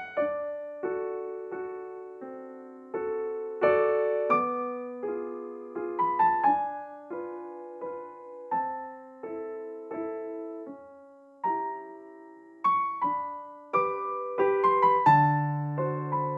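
Background piano music: a gentle melody of struck notes and chords, each dying away, with a low bass chord coming in near the end.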